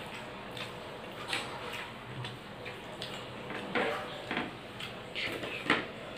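A person eating rice and curry by hand: irregular short chewing and mouth-smacking clicks, with fingers working the food on the plate, the sharpest click near the end.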